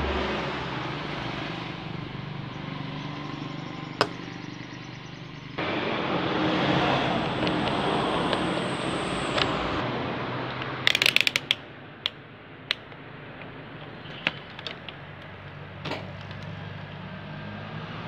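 Steady background road-traffic noise that swells suddenly about five and a half seconds in and eases again after ten seconds. A quick cluster of sharp clicks comes around eleven seconds, and a few single clicks follow as the circuit board and multimeter probes are handled.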